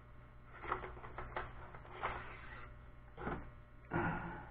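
Small cardboard box being opened and plastic drone propellers slid out and handled: a handful of short rustles and scrapes, the last near the end the loudest, over a steady low mains hum.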